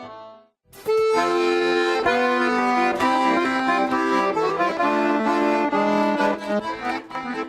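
Garmon (Russian button accordion) playing the instrumental introduction to a folk song in full sustained chords, coming in about a second in after a short gap as earlier music fades out.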